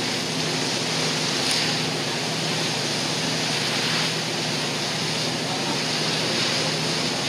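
A cruise boat's wake rushing and splashing along the hull, with the boat's engine humming steadily underneath.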